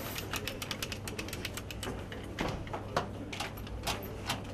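Rapid, irregular clicking and tapping of hard objects being handled, with a few louder knocks about two and a half, three and four seconds in, over a low steady hum.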